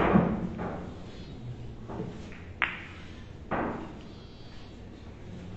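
Boccette billiard balls, thrown by hand, rolling and knocking against each other and the cushions. A rumble fades over the first second, then sharp clicks come about two, two and a half and three and a half seconds in.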